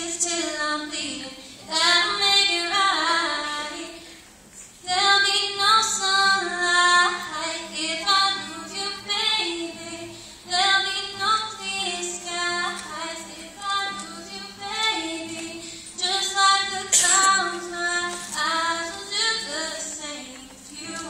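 A teenage girl singing solo into a microphone, accompanying herself on an acoustic guitar that is barely audible under her voice.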